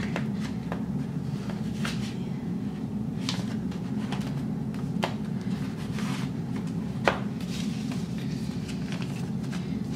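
Paper planner pages being flipped and handled, with scattered soft rustles and short clicks, the sharpest about seven seconds in, over a steady low hum.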